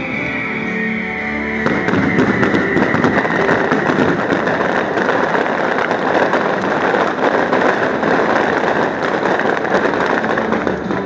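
Fireworks crackling in a dense mass of rapid pops from about two seconds in until near the end, as the bursts break into glittering sparks, over background music.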